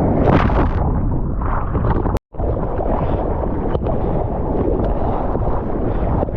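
Loud, steady rush of wind and ocean water on a surfer's point-of-view camera microphone, with a brief total cut-out about two seconds in.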